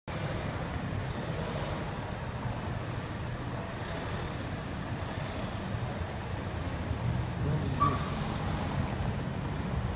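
City street ambience: a steady low rumble of road traffic, with a short high blip about eight seconds in.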